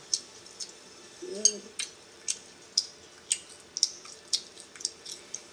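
Close-miked eating sounds of a child eating crab legs: a string of short, sharp mouth clicks and smacks, about two a second, with a brief voice sound about a second and a half in.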